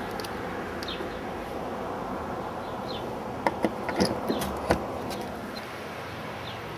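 A white mains plug pushed onto a slot machine's three-pin power inlet: a quick cluster of sharp clicks and knocks about halfway through. Under it a steady hiss, with faint high chirps every second or two.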